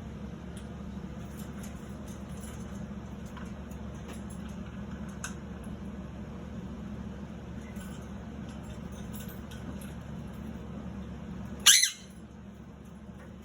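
Blue quaker parrots (monk parakeets) in a cage, with a few faint scattered clicks over a steady low hum. Near the end comes one short, loud, sharp squawk with a downward glide.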